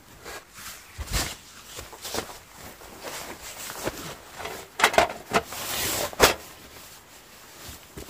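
Rustling and scattered soft knocks from someone moving about inside a small nylon tent, shifting the bedding and a foam sleeping mat, with a longer scraping rustle about two-thirds of the way through.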